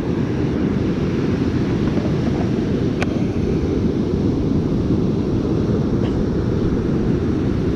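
Steady low noise of wind buffeting the microphone over ocean surf on the beach, with one sharp click about three seconds in.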